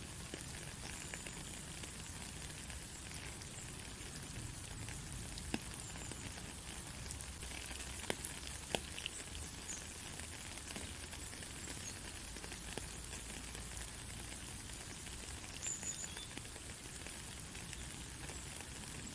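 Steady rain falling on a country road: an even hiss of patter with a few sharper drop ticks around the middle.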